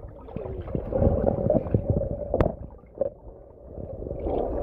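Water gurgling and sloshing, with one sharp click about halfway through.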